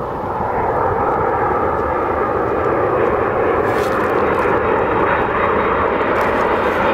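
Large jet airliner on final approach for landing, its engines getting louder over the first second and then holding a steady rushing noise as it descends toward the runway.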